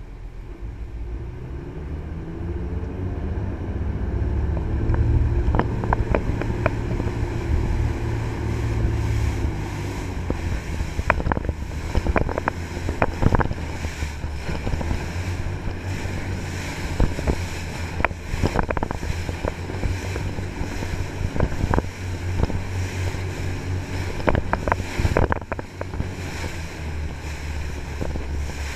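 Jet boat under way, its three Cummins marine diesels driving Hamilton jet pumps in a deep steady drone that grows louder over the first few seconds. Wind buffets the microphone, with frequent short sharp knocks throughout.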